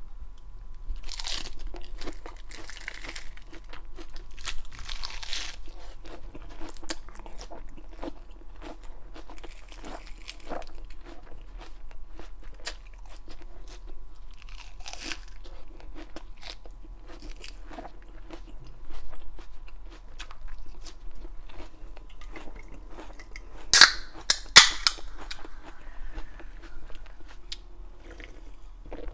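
Crisp iceberg lettuce being bitten and chewed close to the microphone, with leaves torn by hand: a steady run of crunches, with a few louder sharp cracks about three quarters of the way through.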